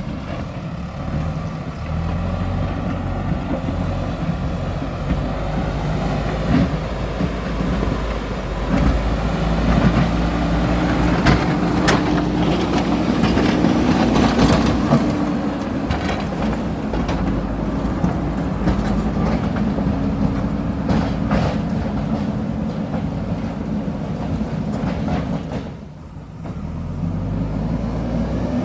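A JCB backhoe loader's diesel engine running under load, with scraping and clanking from the bucket working dirt and rock through the middle. The sound dips briefly near the end.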